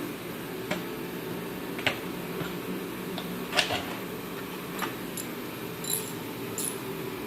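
Light clicks and taps of hand tools and metal heater parts being handled, about five or six scattered through, over a steady low hum.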